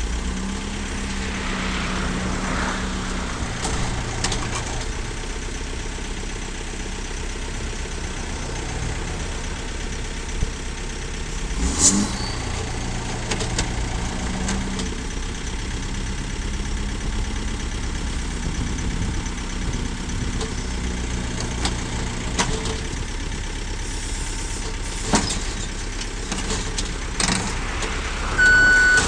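Engine of a heavy work vehicle running steadily, with a few sharp knocks along the way; a reversing beeper starts sounding near the end.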